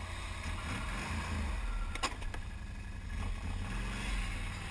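Can-Am Outlander XMR 1000 ATV's V-twin engine running steadily, with one sharp click about two seconds in.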